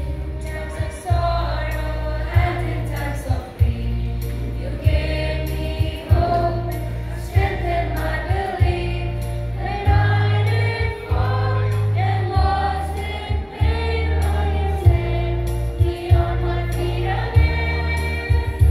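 Mixed choir of teenage boys and girls singing a song together into microphones, over a deep bass accompaniment whose notes change every second or two.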